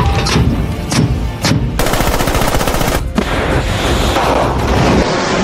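Warship weapons firing: rapid gunfire with many shots a second, then, about three seconds in, the long rushing noise of a missile launching from the deck.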